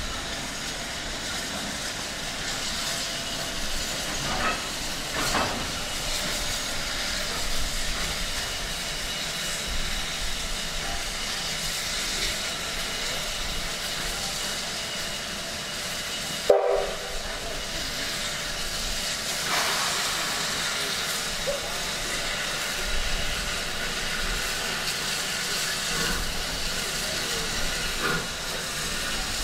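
Steam locomotive hissing steadily as it stands and eases along the platform, steam escaping. About sixteen seconds in, a brief loud tone, likely a short whistle note, is cut off abruptly.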